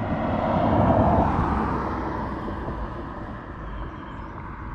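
A passing vehicle: its noise swells to a peak about a second in, then slowly fades away.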